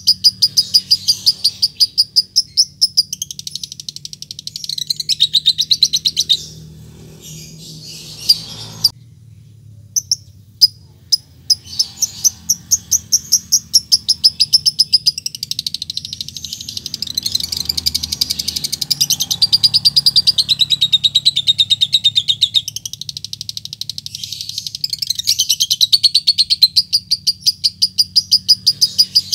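Lovebird calling in long runs of rapid, shrill, evenly repeated chirps, about five a second: the chattering ngekek call used to provoke other lovebirds into answering. The calling breaks off for a few seconds near the start, with only scattered single notes, then resumes in one long unbroken run.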